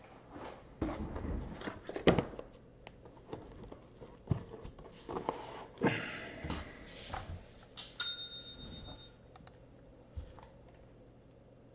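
Scattered knocks, thumps and rustling as a person moves about and settles into a desk chair at a computer. A short steady electronic beep sounds about eight seconds in, after which it goes quieter.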